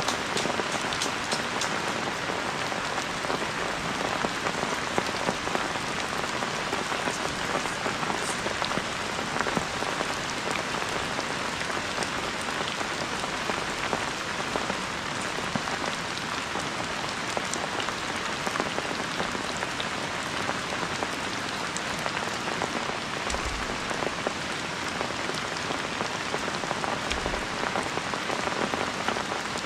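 Heavy rain falling steadily: a dense, even hiss peppered with fine drop ticks.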